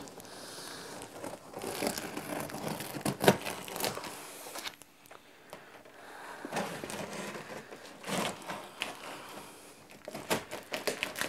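Packing tape and cardboard on a shipping box being cut and torn open: irregular tearing and scraping, with sharp snaps about a third of the way in and several more near the end.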